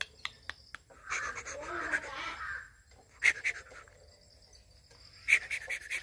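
Light clicks and taps from hands working wires into a rotary isolator switch box, with harsh bird calls in quick runs twice, about three seconds in and near the end.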